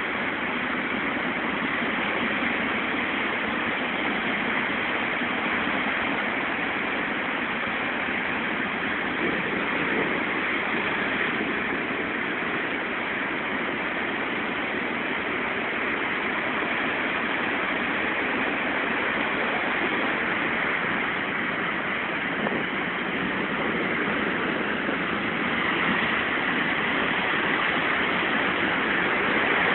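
Heavy surf: rough-sea waves breaking over rocks and washing across the shore in a continuous rush of water, growing a little louder near the end as the water churns up close.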